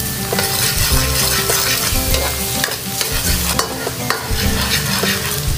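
Minced garlic sizzling in hot oil in a wok while a metal spatula stirs it and scrapes across the pan, the garlic being sautéed until golden brown.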